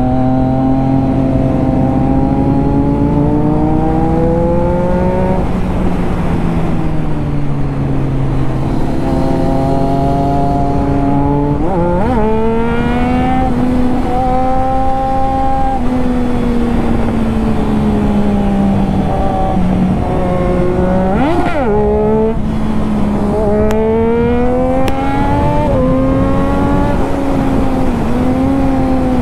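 Triumph Daytona 675's inline three-cylinder engine running under load on the move, with wind rush. The revs climb slowly, fall back several times and climb again, and a sharp quick rev rise and fall comes about two-thirds of the way through.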